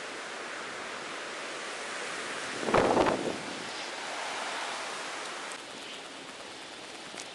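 Steady outdoor hiss of wind on the microphone, with one brief louder gust or rustle about three seconds in.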